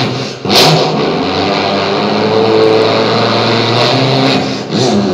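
A man's voice imitating a motorbike engine into a handheld microphone. It opens with a hissy burst like a throttle blip about half a second in, holds a steady engine drone, and ends with a few more bursts and a sliding change of pitch near the end.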